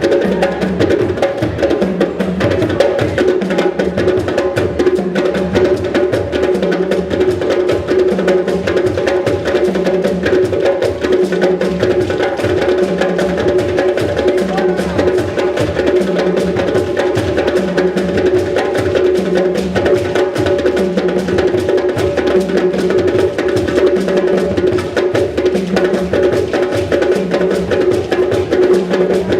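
West African hand-drumming ensemble playing a steady, repeating rhythm.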